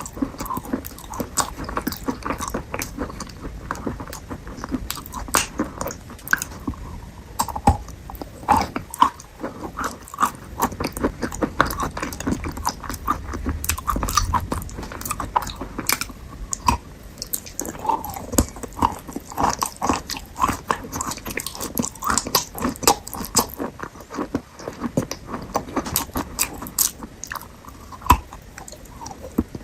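Fruit being bitten and chewed close to the microphone: a steady run of crunchy bites and wet, smacking chews.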